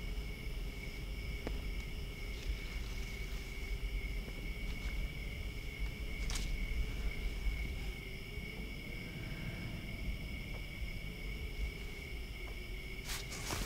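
Steady trilling of crickets, a night-time insect chorus, over a low rumble, with a sharp click about six seconds in and another near the end.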